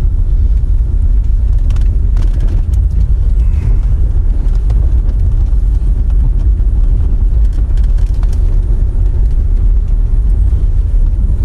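Land Rover Freelander driving slowly over a gravel car park, picked up by a camera mounted on the outside of the car: a steady low rumble of the car and wind on the microphone, with a few faint ticks.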